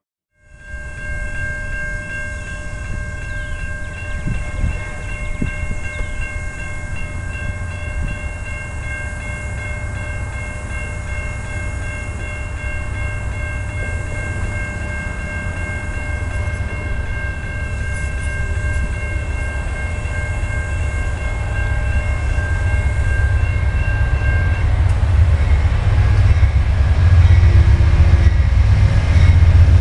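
Railroad grade crossing warning bell ringing steadily with the gates down, over the low rumble of an approaching train that grows louder toward the end. The bell stops about five seconds before the end.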